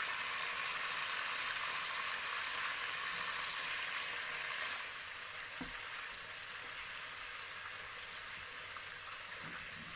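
Croaker fish frying in hot mixed palm and vegetable oil in a pot: a steady sizzle that drops a little in level about five seconds in, with one light knock shortly after.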